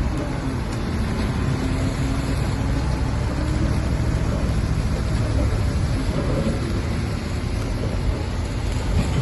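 Heavy diesel earthmoving machinery working: a steady low engine rumble with a rough, noisy grinding over it.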